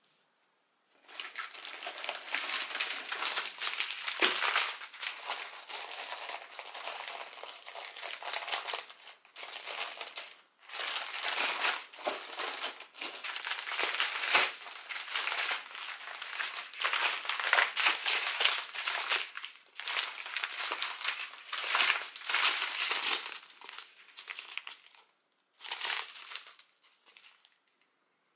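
Clear plastic bags of diamond-painting drills crinkling and rustling as they are handled, in irregular bursts with short pauses. The sound starts about a second in and dies out near the end.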